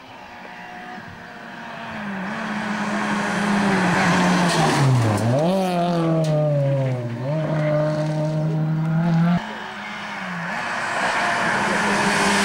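Small hatchback rally car's engine at speed, getting louder as it approaches and passes close, its revs dropping and climbing sharply about five seconds in, then holding steady as it pulls away. About nine seconds in the sound cuts to a second rally car, its engine building as it approaches.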